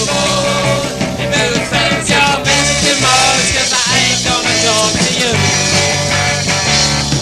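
Punk rock band playing, with electric guitars, bass and drums, from a 1978 cassette tape recording.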